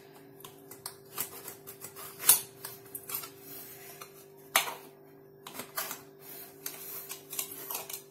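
A knife clicking and scraping against the metal sides of a loaf tin as it loosens a baked sponge cake, with many small ticks and a few sharper knocks, the loudest about two seconds in and again about four and a half seconds in.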